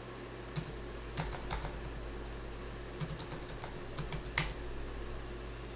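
Computer keyboard typing as a username and password are entered, in short runs of quick keystrokes: one about a second in, another around three seconds in, and a louder single keystroke a little after four seconds.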